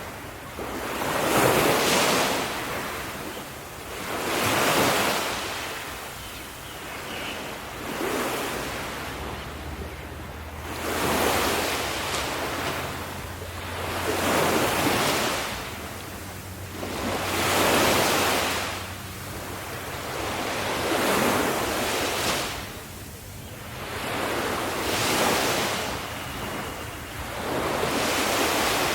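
Ocean waves breaking on a shore, the surf swelling and easing about every three to four seconds, some nine waves in all.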